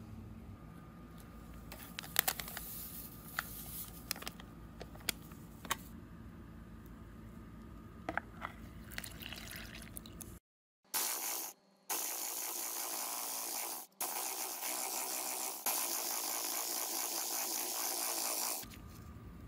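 Scattered light clicks and taps of kitchen handling over a low hum. After a brief cut to silence comes a steady rushing whir from an electric hand mixer beating a milk mixture in a plastic bowl, which steps up in level near the end.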